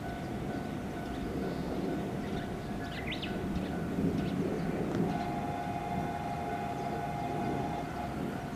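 Japanese level crossing alarms ringing steadily, a second alarm at a slightly higher pitch joining about halfway through, over a low rumble from a train approaching out of sight.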